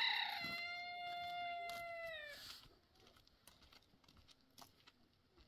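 A rooster crowing: one long call held on a steady pitch for about two seconds, falling away at the end.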